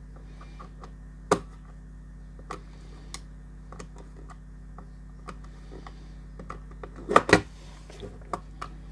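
Small clicks and taps of a signal cable's connector being handled and plugged into an LED splitter amplifier's input, with a sharp click about a second in and a louder cluster of clicks about seven seconds in, over a low steady hum.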